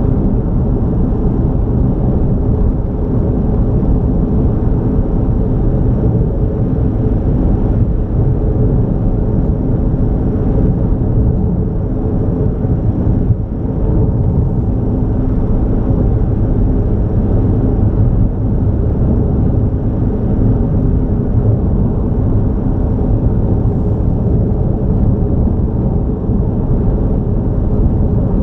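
A car driving on a highway: steady low rumble of engine and road noise.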